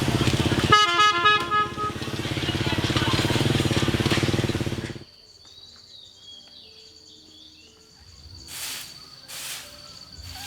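Motorbike engine running, with a quick run of horn beeps about a second in; the engine cuts off at about five seconds. After a quiet spell, broom strokes sweeping the yard start near the end, about one swish a second.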